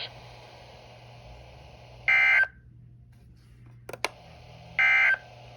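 Two short bursts of NOAA Weather Radio SAME digital data tones, about two and a half seconds apart, over a steady low hum. They are the end-of-message code that follows a finished warning. A brief click falls between them.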